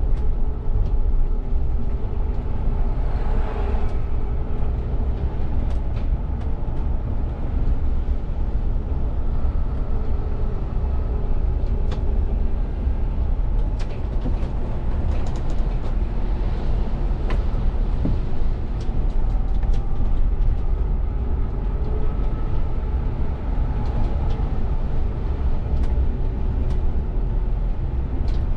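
VDL city bus driving, heard from the driver's seat in the cab: a steady low rumble of engine and road noise, with a faint whine that rises and falls slightly with speed and occasional small clicks.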